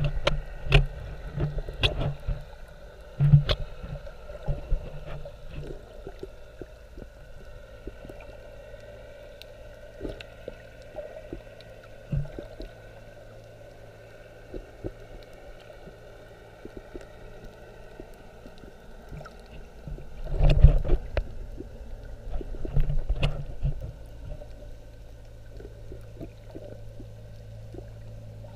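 Muffled underwater sound picked up through a camera held below the surface: a steady low hum with faint steady tones under it. Clusters of knocks and gurgles come in the first few seconds and again about twenty seconds in.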